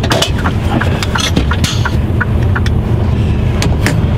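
Mercedes-Benz Actros truck's diesel engine idling steadily, heard from inside the cab. Several short sharp clicks and knocks sound over it.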